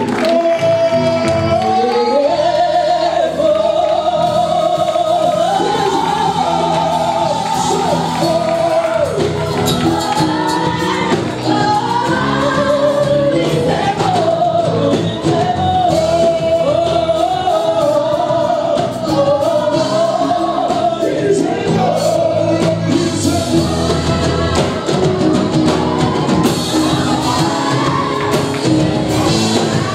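A group of singers performing a gospel song live, with instrumental backing, singing continuously.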